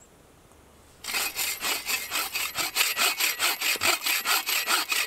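Hand saw cutting through a small log in quick, even back-and-forth strokes, starting about a second in.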